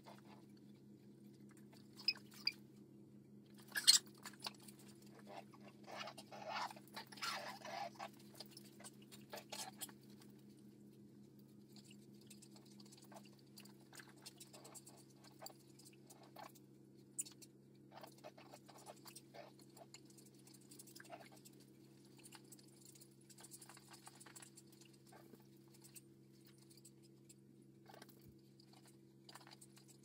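A puppy playing with a toy: scattered small ticks and scuffles of chewing and moving about, with two sharp knocks about two and four seconds in and a busier stretch of scuffling after that, over a faint steady low hum.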